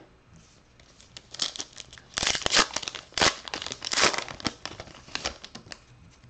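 Wrapper of a 2019 Topps Archives baseball card pack being torn open and crinkled: irregular rustling crinkles, loudest about two to four seconds in.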